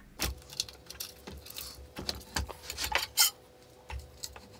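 Scattered light clicks and clinks of hand assembly work: metal screws and a hex key knocking against a CNC machine's acetal plates and aluminium-extrusion frame, with a few sharper knocks among them.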